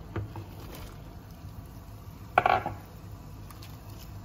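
Kitchen clatter at a steel pot of boiling water as broccoli florets are tipped in and stirred: a few light clicks at first, then one brief loud knock against the pot about two and a half seconds in.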